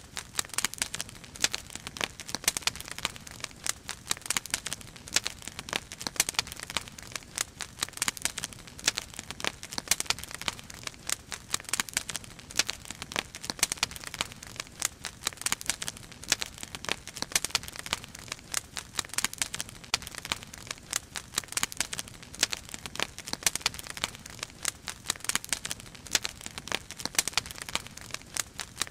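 Firewood burning in a fire basket, crackling steadily with many irregular sharp pops and snaps.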